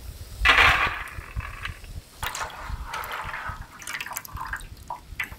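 Water sloshing and splashing in several short bursts as green peas are rinsed.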